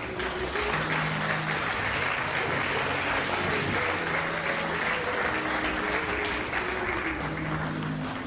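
Audience applauding: dense clapping that builds just before the start and thins out near the end, with backing music continuing underneath.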